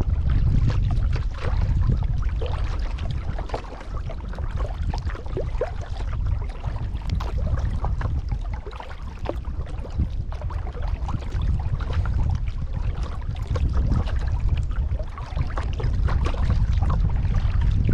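Kayak paddling on a pond: paddle blades dipping and water splashing and trickling in many small splashes, over a low rumble.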